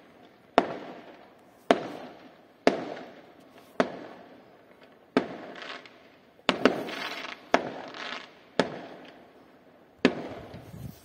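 Aerial firework shells bursting, about ten sharp bangs roughly a second apart, each trailing off. A short stretch of crackling follows a bang about six and a half seconds in.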